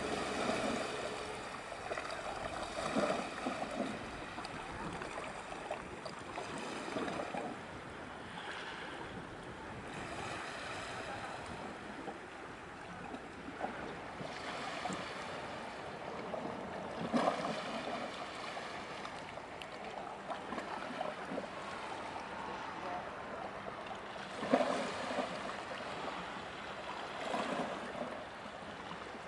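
Small waves washing onto the shore in surges every few seconds, over a steady hiss of water and wind.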